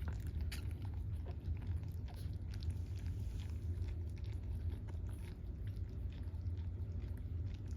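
Newborn dachshund puppies nursing: a steady run of small, quick suckling clicks over a constant low rumble.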